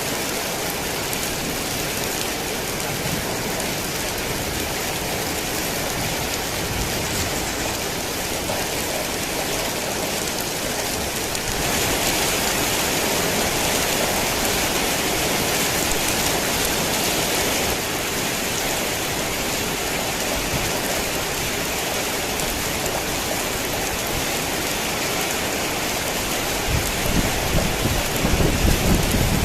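Heavy rain falling steadily in an even hiss, heavier for a few seconds about twelve seconds in. Thunder rumbles low near the end.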